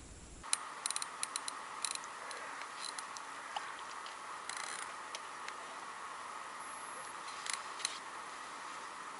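A few faint, sharp clicks and ticks over a steady low hiss: a cluster in the first couple of seconds, then single clicks further on.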